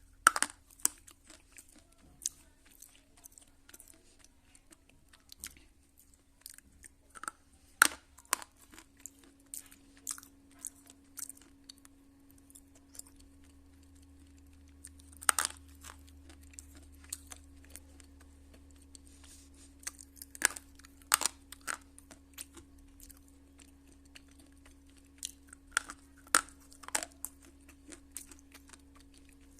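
Slate pencil being bitten and chewed close to the microphone: sharp, irregular crunches every few seconds with fainter crackling chews between them. A faint steady hum runs underneath.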